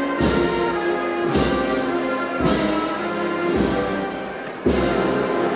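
A wind band plays a slow processional march, with sustained brass and woodwind chords and a heavy percussion hit on each beat, about one a second.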